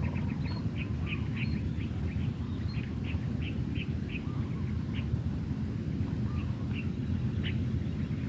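Birds calling in runs of short, high chirps, quick at first and then more spaced, over a steady low rumble of background noise.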